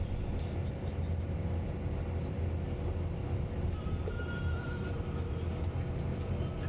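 Steady low rumble of road and engine noise heard from inside a moving vehicle travelling along a road.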